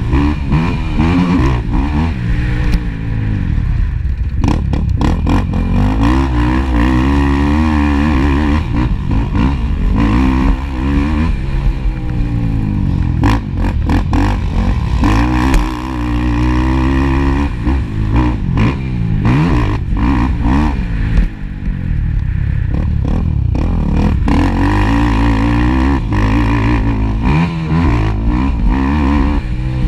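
Racing ATV engines revving hard, the pitch climbing and dropping over and over as the throttle opens and closes. There is clattering over the engine sound.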